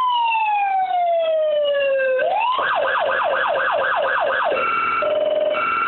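Federal Signal Touchmaster Delta electronic siren cycling through its tones. A long wail glides slowly down in pitch, then switches to a fast yelp sweeping about five times a second, then to a hi-lo two-tone alternating between a high and a low note. It cuts off at the end.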